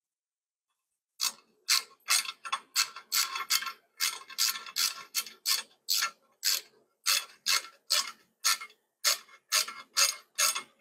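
Socket ratchet clicking in quick repeated strokes, about two a second, starting about a second in, as a crash-bar mounting bolt is run in but not yet tightened.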